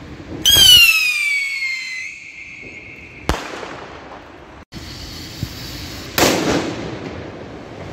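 Firework whistle that starts loud and falls in pitch, then holds steady for a few seconds. It ends as a sharp bang about three seconds in. A second, louder firework blast with a crackling tail comes near the end.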